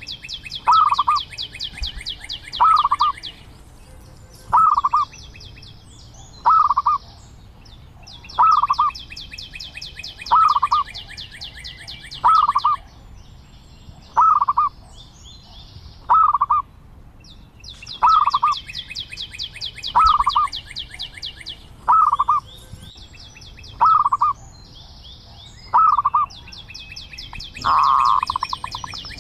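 Zebra dove calling: a short, hooked call repeated about every two seconds, over long stretches of high, rapid trilling.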